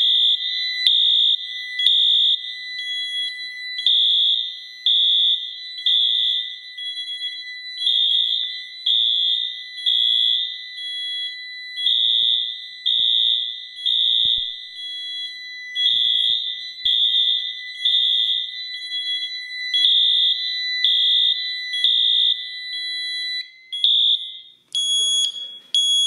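Wheelock MT fire alarm horn sounding the temporal code 3 pattern, three blasts then a pause, repeating about every four seconds; the panel is in alarm, tripped by the duct smoke detector. Under it runs a steady high-pitched alarm tone from the duct detector's remote test station.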